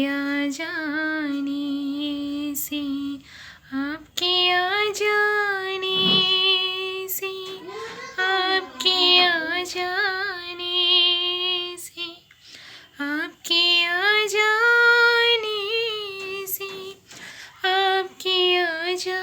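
A woman singing long, drawn-out notes with vibrato, phrase after phrase with short breaths between.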